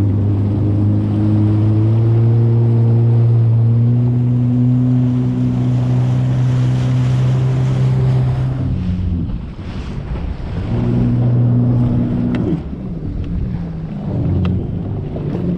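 Yamaha FX HO WaveRunner jet ski's engine running at a steady cruise with water and wind rushing past, easing off about nine seconds in, picking up again briefly, then dropping back near the end as it slows.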